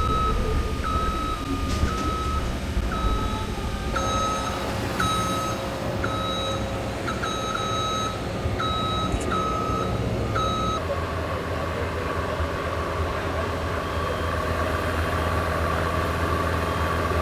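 Backup alarm of a work vehicle beeping about once a second over its running engine; the beeping stops about two-thirds of the way through while the engine keeps running.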